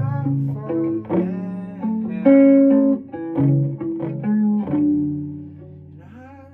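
Guitar playing: a loose run of plucked notes and chords over lower held notes, with one louder ringing note about two seconds in, trailing off near the end.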